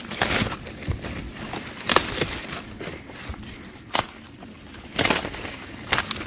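Thousand-headed kale leaves being snapped off their stalks by hand: about five sharp cracks, roughly one every second, with leaves rustling between them.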